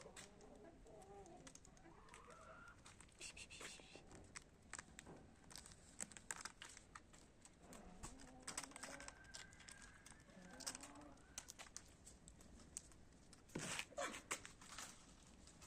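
Faint, short cat meows several times, over scattered clicks and rustling.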